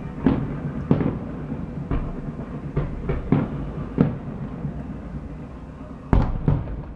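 Fireworks exploding: a series of sharp bangs, about eight in seven seconds, over a continuous low rumble, with two loud bangs close together near the end.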